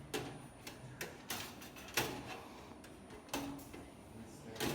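Irregular sharp clicks and knocks, about six in under five seconds, from parts being handled while a power supply is taken out or put in.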